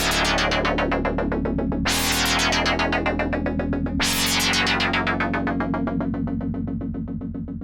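Sequential OB-6 analog synthesizer playing a sequenced FM patch, its second oscillator cross-modulating the first, straight off the panel with no effects. A fast repeating note pattern runs over low held bass notes, with a bright attack that dies away about every two seconds, and the sound fades out near the end.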